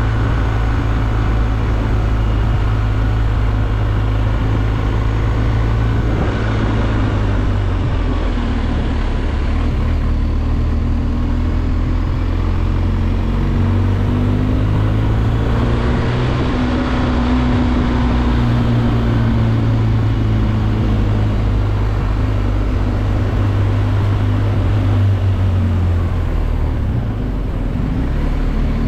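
BMW R 1250 GS Adventure's boxer twin engine running steadily on the move, recorded onboard, its note rising and falling gently with the throttle through the bends.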